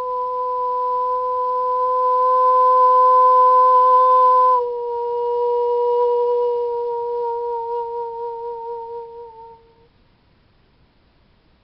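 A woman's voice holding one long, clear wordless note in spontaneous singing. It swells, dips slightly in pitch about four and a half seconds in, then wavers and fades out at about nine and a half seconds.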